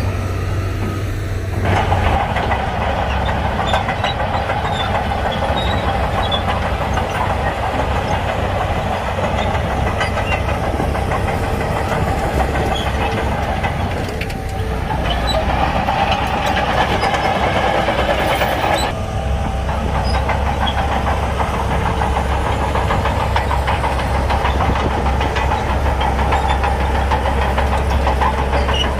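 Heavy diesel engine of a Shantui bulldozer running under load, with a steady low rumble. A harsher, rattling layer comes in about two seconds in, drops out briefly around fourteen seconds, and falls away again around nineteen seconds.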